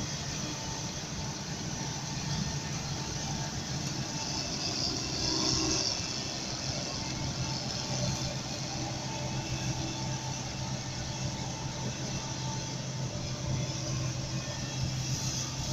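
Claas Dominator 76 combine harvester running steadily as it cuts and threshes oats, a constant engine hum under the broad clatter of the working machine, briefly louder about five seconds in.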